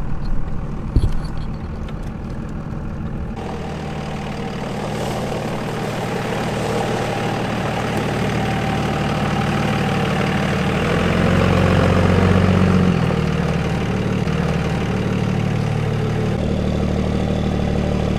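Pickup truck engine idling steadily: a continuous low hum.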